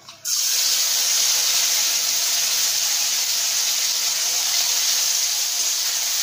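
Chopped tomato hitting hot mustard oil in a kadai: a sudden loud sizzle that starts a moment in and keeps up as a steady hiss while the tomato is stirred with a spatula.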